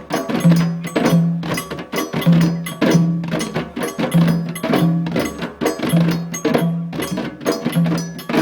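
Djembe drumming: a steady repeating rhythm of sharp hand strokes, with a pair of low tones coming back about every two seconds.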